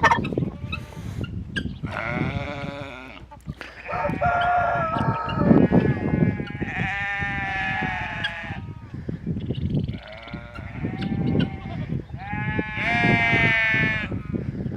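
Goats bleating: several long, wavering bleats one after another, some overlapping.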